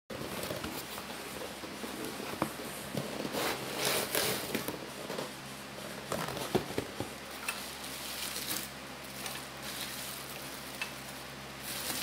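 Plastic packaging and bubble wrap rustling and crinkling as a parcel is opened and unwrapped by hand, in irregular surges with a few small clicks.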